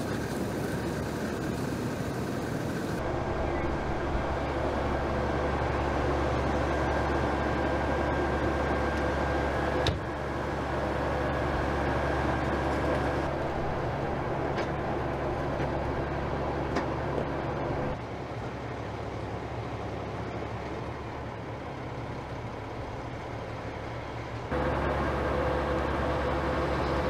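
Steady vehicle engine and traffic noise, a low hum under a broad rush, changing abruptly several times as the shots cut.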